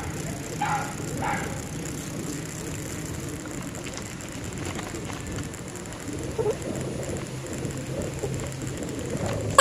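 Bicycle rear freewheel ticking as the rider coasts, with two short high squeaks about a second in.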